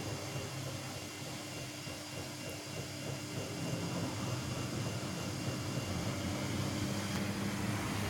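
Samsung P1271 front-loading washing machine running with a steady whirring hum, growing slightly louder a few seconds in.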